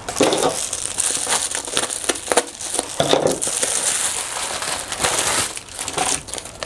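Plastic mailer envelope crinkling and rustling as it is slit open with a box cutter and its contents pulled out, with many short crackles throughout.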